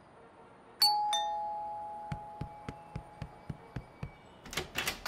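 Two-tone doorbell chime, a higher 'ding' then a lower 'dong' about a second in, ringing on and fading slowly. It is followed by quick footsteps, about four or five a second, and a short rattle near the end.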